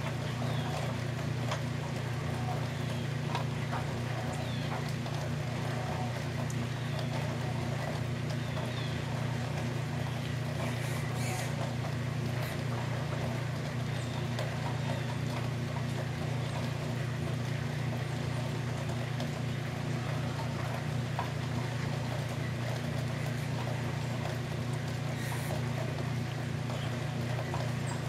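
A steady low mechanical drone, unchanging throughout, under a faint hiss with a few scattered small ticks.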